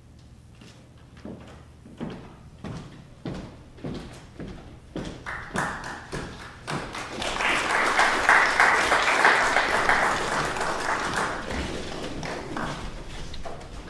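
Scattered knocks and thumps on a wooden stage floor. About five seconds in a loud, even rush of noise joins them, swells, then fades near the end.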